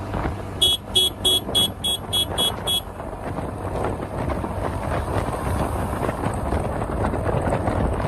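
TVS NTORQ 125 scooter running under acceleration at highway speed, with wind rushing over the microphone. About half a second in comes a quick run of eight high beeps, about three a second, lasting roughly two seconds.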